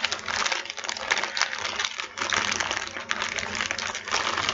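Small plastic baggie of nail-art decorations crinkling and rustling as it is handled, with many light clicks throughout.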